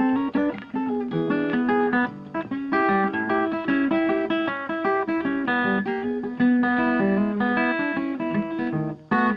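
Background music: guitar playing a plucked melody over bass notes, with a brief gap near the end.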